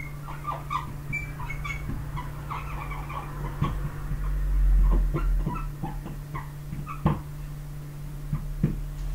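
Marker squeaking and scratching on a whiteboard in many short strokes as words are written, over a steady low electrical hum. A low rumble comes about halfway through.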